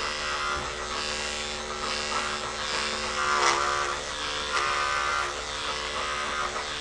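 Corded electric dog-grooming clipper fitted with a number 7 finishing blade, running with a steady buzz as it cuts through an Airedale terrier's wiry coat in short flicking strokes.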